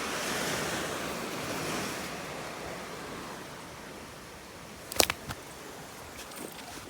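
Ocean surf washing on a beach, strongest over the first two seconds and then easing. A quick cluster of sharp clicks comes about five seconds in.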